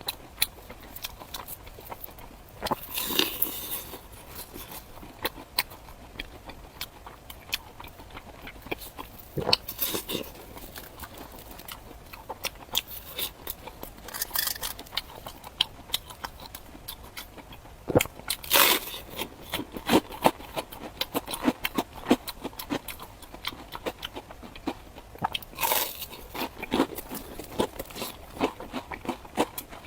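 Biting and chewing crunchy food: a run of crisp crunches and mouth clicks, with louder bursts of crunching every few seconds.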